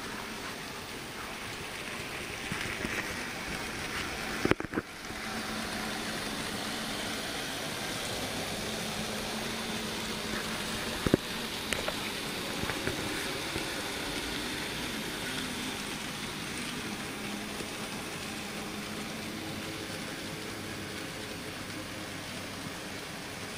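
Z scale model freight train running on its track: a steady hiss of wheels and small motors with a faint low hum. There is a sharp click about four seconds in and another about eleven seconds in.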